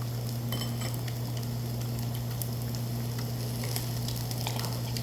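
Food sizzling on a hot tabletop grill, with fine crackling and scattered small pops over a steady low hum.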